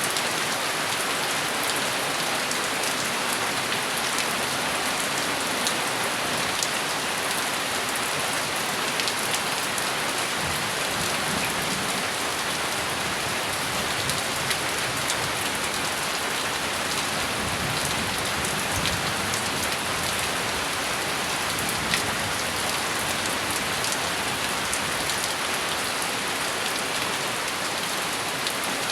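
Steady heavy rain falling, an even hiss with scattered sharp taps of single drops striking a surface.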